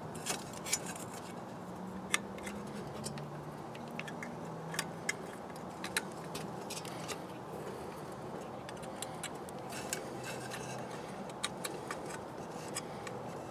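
Small irregular metallic clicks and taps as wire connectors are pushed onto the terminals of a headlamp bulb holder and the metal reflector is handled.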